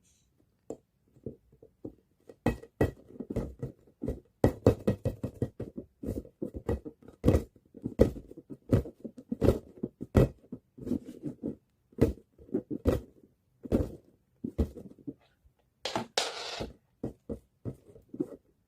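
A ball bounced over and over, a string of thuds at uneven spacing, some coming in quick runs. About sixteen seconds in there is a brief scuffing rustle.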